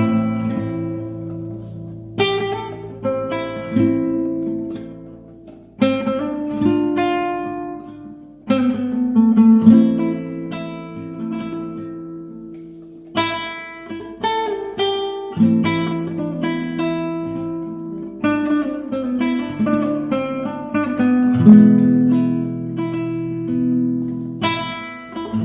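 Acoustic guitar playing an instrumental ballad: plucked melody notes over picked and strummed chords, each struck note ringing and fading.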